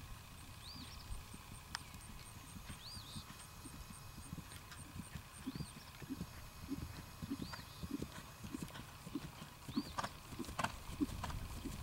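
Hoofbeats of a ridden horse on grass turf: a soft, uneven drumming of thuds that grows louder from about halfway through. A few sharp clicks stand out near the end.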